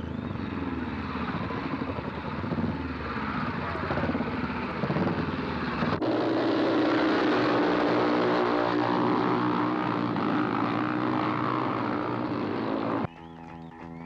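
Speedway motorcycles racing, their engines running hard together in a steady drone. About six seconds in the sound changes abruptly to a smoother drone that climbs in pitch, and it cuts off suddenly about a second before the end.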